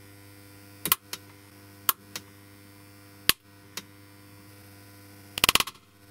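Xenon flash tube in a Friedman visual field analyser firing: three sharp pops about a second apart, each followed by a fainter click, then near the end a quick run of crackles, the sparky noise of arcing inside the flash housing. A steady mains hum sits underneath.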